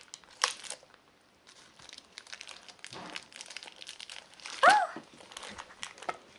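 Plastic blind-bag packets crinkling as they are handled and opened by hand. About three-quarters of the way in there is one brief squeak that rises and falls.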